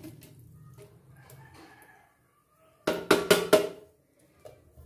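A metal fruit-cocktail tin knocked about five times in quick succession, a little under three seconds in, to shake out the last of the fruit and syrup.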